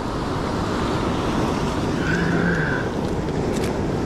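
Ocean surf washing on a sandy beach, with wind buffeting the microphone, as a steady rush. A brief faint tone sounds about halfway through.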